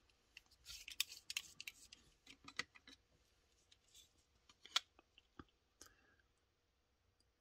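Faint clicks and light scrapes of a digital caliper being slid and set against the plastic base of a small model building while it is handled, with one sharper click a little before five seconds in.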